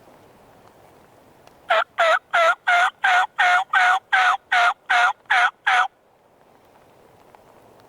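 A run of about a dozen loud turkey yelps, evenly spaced at roughly three a second, each note dipping and rising in pitch.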